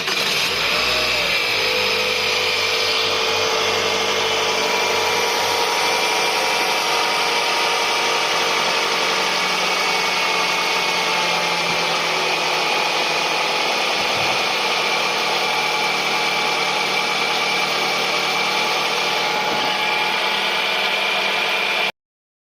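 Toyota Ipsum engine idling steadily just after starting, with steady high whining tones running through it. The sound cuts off suddenly near the end.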